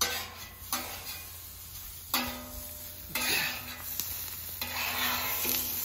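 Diced onions sizzling on a Camp Chef steel flat-top griddle as a metal spatula scrapes and turns them, heard in several stretches that start and stop abruptly. It opens with a spatula stirring the shredded hash brown mix in a glass bowl.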